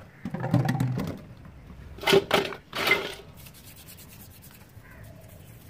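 Metal drill gearbox parts being handled and scrubbed in a steel bowl: a rubbing scrape about half a second in, two sharp knocks of metal on metal around two seconds in, then another short scrape.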